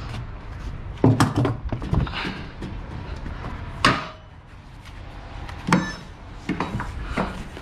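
A series of sharp knocks and clatters as a rolled cargo lashing strap with a metal hook is handled against the truck trailer and thrown over the load.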